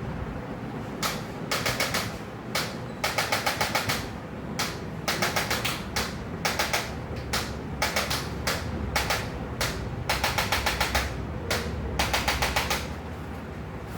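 Rapid sharp taps in quick runs of about half a dozen strikes, roughly eight a second, with single taps between the runs. They repeat for about twelve seconds and then stop.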